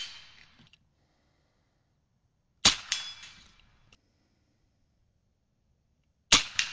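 Air rifle firing twice, once about two and a half seconds in and again near the end. Each shot is a sharp crack followed a split second later by a second smack as the pellet hits the target.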